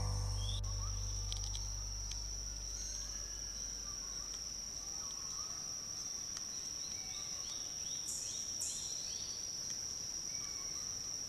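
Tropical forest ambience: insects keep up one steady high-pitched note, with a run of faint short chirps in the second half.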